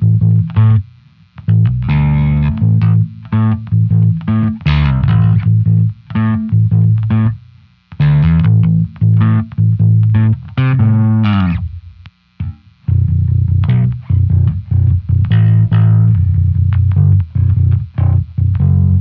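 Five-string Spector bass guitar playing a riff of plucked notes through the Blue Line bass amp model in the BIAS Amp simulator, with an Empress compressor set to a 4:1 ratio. The notes slide downward in pitch about eleven seconds in, and the line breaks off briefly twice.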